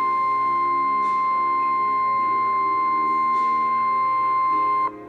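Emergency alert tone: a single steady, loud high tone near 1050 Hz, the NOAA Weather Radio warning alarm that precedes a tornado warning, cutting off abruptly near the end. Soft background music plays underneath.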